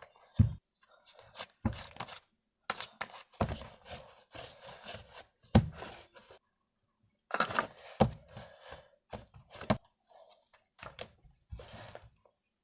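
Irregular crackling and tearing handling noises with a few light knocks, as something is worked by hand. They stop for about a second midway.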